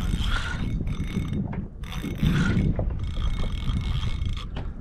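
A fishing reel whirring in about four short spells under the pull of a hooked fish, over wind and water rumble on the microphone.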